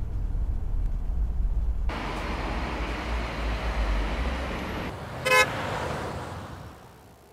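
Car engine rumble and road traffic noise, widening into passing-traffic sound after about two seconds, with one short car horn toot about five seconds in; the noise fades away near the end.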